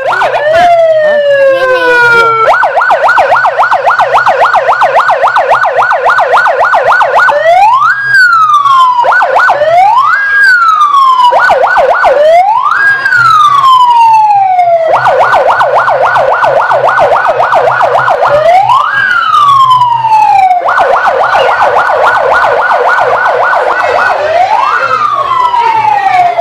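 Electronic siren switching between a rapid warbling yelp and slower wail cycles that climb quickly and sink away, loud throughout.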